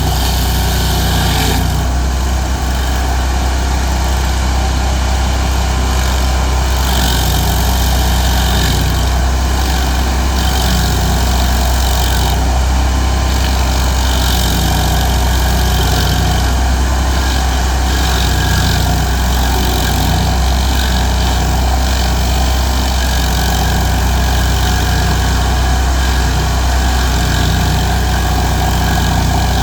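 Stump grinder's engine running steadily under load while its cutting wheel grinds into a stump, the rough grinding noise swelling and easing every few seconds.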